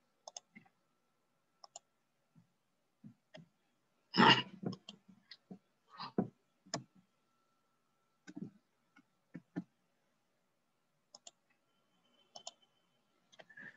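Scattered clicks of a computer mouse and keyboard, sparse and irregular, the loudest about four seconds in.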